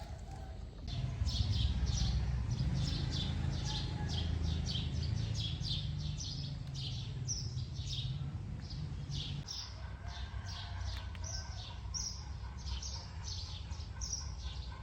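A bird chirping rapidly and steadily, short high descending notes about two or three a second, over a low rumble that falls away about nine and a half seconds in.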